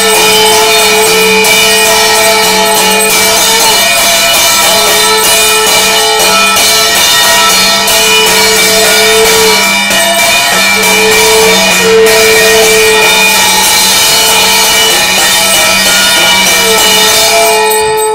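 Loud puja din of a brass plate (kansar) beaten rapidly with a stick, with clanging metal and a strong held note that breaks off and returns every few seconds.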